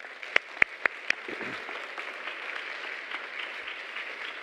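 Congregation applauding: four sharp, louder claps close by in the first second or so, then steady clapping from many hands.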